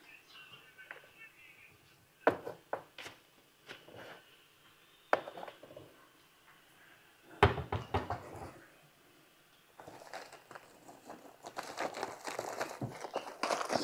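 Household things being rummaged through: scattered knocks and clunks, the loudest about halfway in, then steady rustling and crinkling with small clicks from about ten seconds in.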